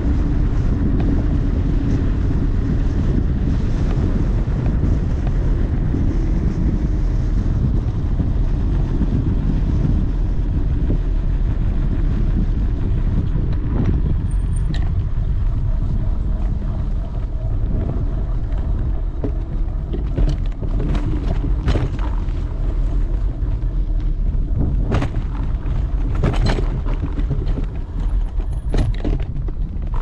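Wind buffeting the microphone of a handlebar-mounted action camera on a moving electric scooter: a loud, steady low rumble. In the last third come several sharp knocks and rattles.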